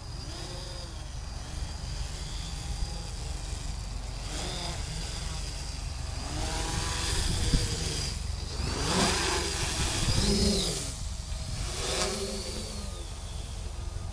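Quadcopter with four SunnySky 2212 980kv brushless motors spinning 10-inch plastic props, a buzz like a horde of bees. Its pitch keeps rising and falling as the flight controller varies motor speed. It gets louder from about six to eleven seconds in, while the drone passes low and close.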